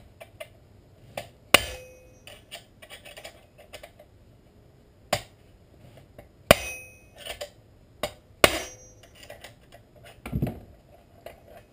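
Hammer striking a screwdriver set in a notch of a Husqvarna 455 Rancher chainsaw's clutch, knocking it loose. There are four sharp metallic blows spread over several seconds, some with a brief ring, and lighter clicks of metal between them.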